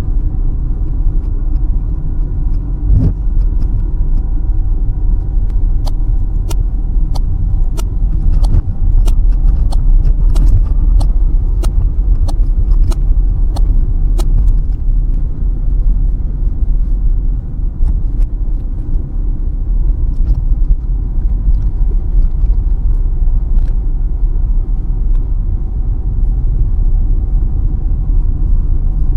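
Car driving on a country road heard from inside the cabin: steady low engine and tyre rumble. From about six to fourteen seconds in, a run of sharp light ticks comes roughly twice a second.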